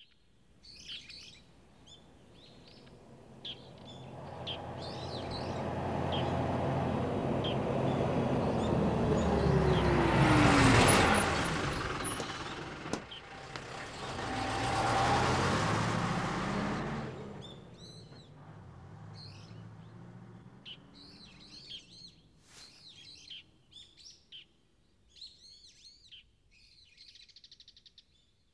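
Birds chirping throughout. In the middle, a bus engine grows louder over several seconds, passes with a falling pitch, and dies away.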